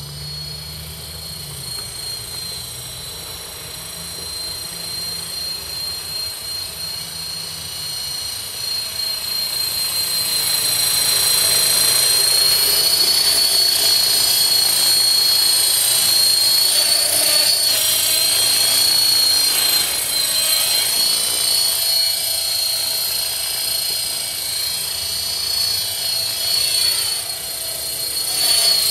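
KDS 450 electric RC helicopter flying: a steady high-pitched whine of motor and gears with rotor noise. It gets louder about ten seconds in as the helicopter hovers low close by, and the pitch sweeps briefly near the end as it climbs away.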